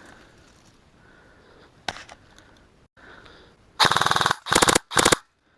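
Airsoft electric rifle firing on full auto: three rapid bursts in quick succession near the end, after a single sharp crack about two seconds in.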